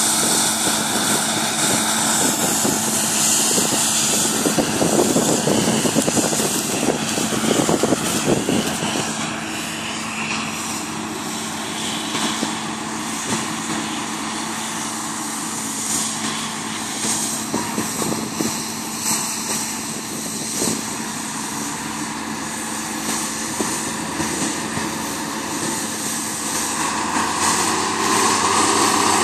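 Claas Lexion combine harvester running steadily while harvesting, its engine and threshing machinery giving a constant hum, then an International 1255 XL tractor pulling a loaded grain trailer, its diesel engine growing louder near the end as it comes closer.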